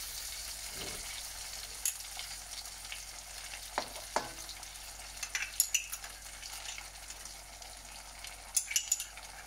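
Floured chicken breasts sizzling steadily in butter in a nonstick frying pan as spoonfuls of cream are dropped in, with a few light clicks of the spoon scattered through.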